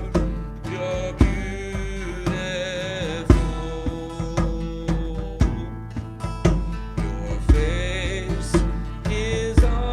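Live worship music: a voice singing long, held notes over guitar and a drum kit that keeps a steady beat of about one strong hit a second.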